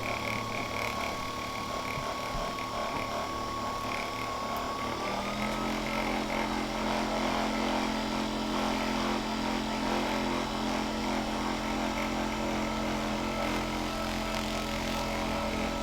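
Electric handheld massager running on a patient's back, a steady motor buzz that steps up to a higher speed about five seconds in.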